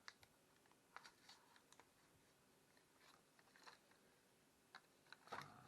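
Faint, scattered small clicks and taps of a GoPro Hero 11 Black camera's plastic body being handled, with a louder cluster of clicks near the end.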